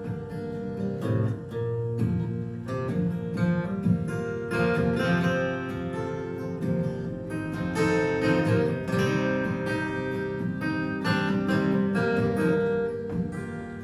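Acoustic guitar playing the instrumental intro to a folk song, picked and strummed notes ringing on.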